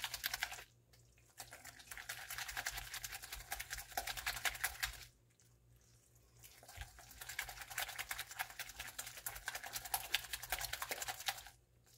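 Thick cream being stirred rapidly by hand in a glass bowl, a fast run of wet clicking and slapping strokes in three spells with short pauses around one second and five seconds in. The cream is breaking into butter, with the whey just starting to separate out.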